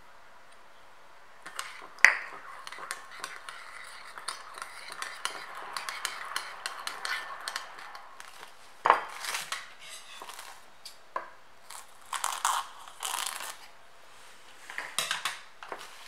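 A sharp clink against a ceramic bowl about two seconds in, then several seconds of light scraping and clicking. After that, plastic cling film crackles in several separate bursts as it is pulled from the roll and pressed over the bowl.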